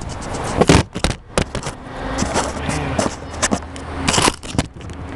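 Several sharp clicks and knocks of equipment being handled, over a steady background rumble.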